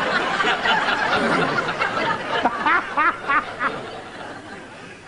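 Studio audience laughing, dying away over a few seconds, with a man's own laugh in a few short pitched bursts about halfway through.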